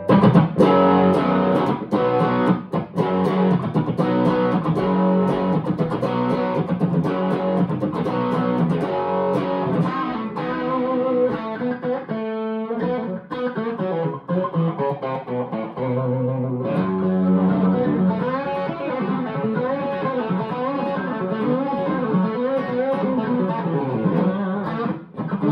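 1961 Gibson SG Special electric guitar played through an amplifier on its bridge P-90 pickup, with the guitar's volume rolled back to about 8 to test whether the overdrive cleans up. A busy lead line of picked notes with string bends and vibrato, with a brief pause about twelve seconds in.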